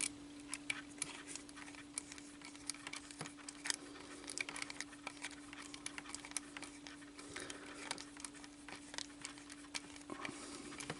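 A long screw being driven by hand with a screwdriver into a plastic model-kit mounting: faint, irregular small clicks and ticks, over a steady low hum.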